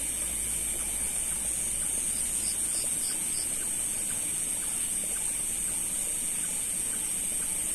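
Steady high-pitched drone of night insects over a wet rice paddy, with a short run of faint rhythmic pips a couple of seconds in.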